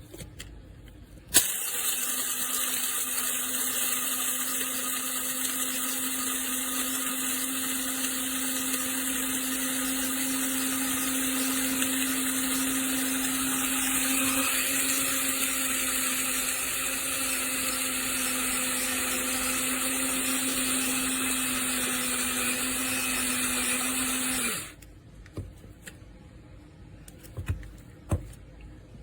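Amazon Basics electric blade coffee grinder running steadily with a whirring hum for about 23 seconds, starting suddenly a second or so in and cutting off abruptly near the end.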